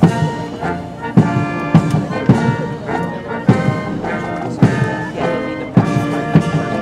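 Military brass band playing a march: sustained brass chords over a bass drum beating steadily, almost twice a second.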